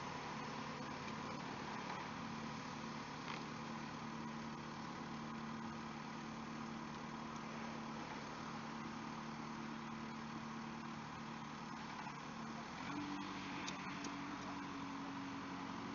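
Compact farm tractor's engine running steadily at low speed, pulling a tree planter; about thirteen seconds in its pitch steps up as the engine speeds up slightly.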